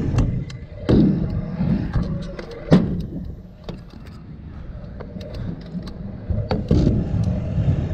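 Stunt scooter riding on skatepark concrete: a steady low rumble of wheels and motion, broken by several sharp clacks of the scooter against the ground. The loudest clack comes near three seconds in, and the rumble drops off for a few seconds after it.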